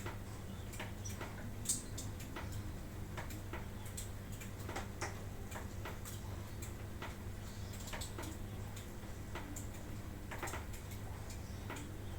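Lovebirds making short, sharp chirps and clicks at irregular intervals, over a steady low hum.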